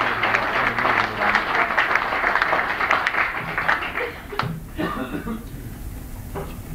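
Audience applauding, the clapping dying away about four seconds in, followed by a few voices talking quietly.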